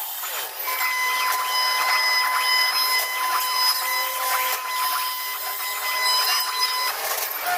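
CNC wood router running: a steady high whine over a scratchy mechanical hiss. The whine breaks off briefly just after the start and again near the end.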